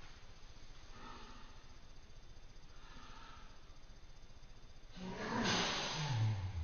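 A person sneezing, played back in slow motion: two faint breathy intakes of breath, then, about five seconds in, a long drawn-out sneeze, a loud noisy burst with a low voice sliding downward.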